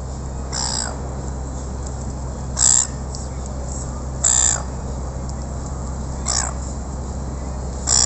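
Silver gulls giving short, harsh calls, repeated about every two seconds over a steady low background hum.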